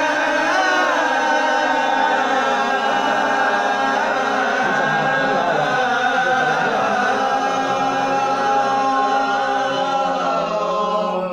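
Men's voices chanting the Islamic call to prayer (ezan) unaccompanied in makam Hicaz: one long, ornamented, held phrase that wavers in pitch and breaks off right at the end.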